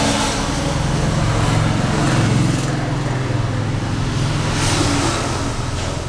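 Low engine hum over steady road-type noise, swelling about two seconds in and again near five seconds, like motor vehicles running or passing.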